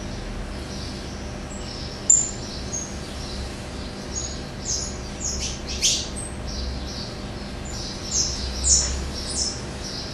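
Small caged songbird giving scattered short, high chirps and quick falling notes, the loudest about two, six and nine seconds in, over a steady low hum.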